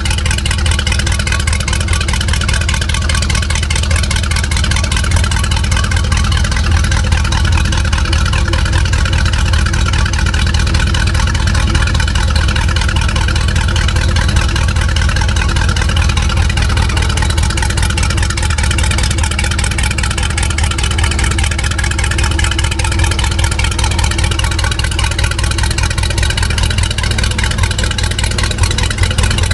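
MerCruiser 383 Mag stroker fuel-injected V8 marine engine running steadily on its test stand, without revving.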